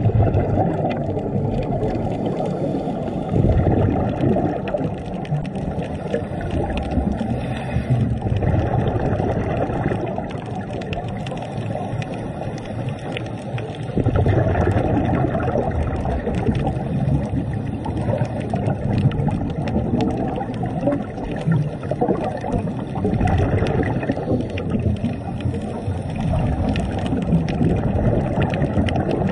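Muffled underwater noise picked up by a camera in a waterproof housing: a continuous low wash of water, with a faint crackle of clicks above it.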